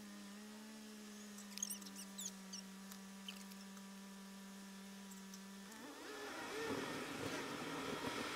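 Dashcam audio inside a car stopped in traffic: a steady hum with a few faint high chirps. About six seconds in the hum stops and road and engine noise rise as the car pulls away.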